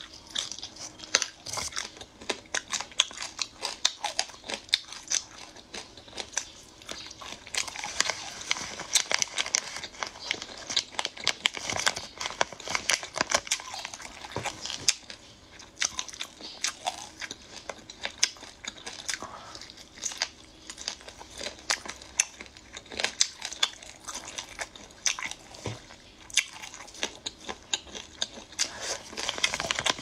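Close-miked eating of marinated chicken feet with Sichuan peppercorns: a dense run of biting, crunching and wet chewing clicks, with a plastic bag of sauce crinkling as it is handled.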